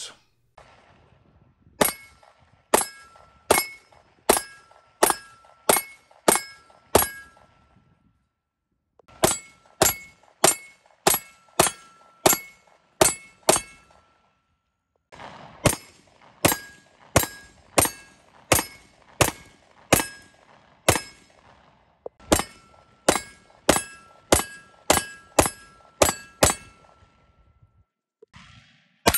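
Springfield Armory Ronin EMP 3-inch 9mm 1911 pistol firing steady slow strings of shots, about one a second, in four groups of six to eight with short pauses between. A metallic ring hangs after the shots from hits on a steel target.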